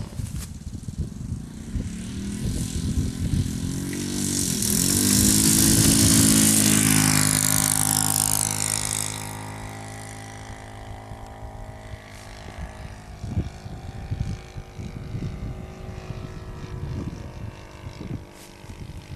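Saito four-stroke glow engine of an RC model Cessna running at high power as the plane passes close. It grows louder to a peak about six seconds in, its pitch drops as it moves away, and it then continues as a fainter steady drone.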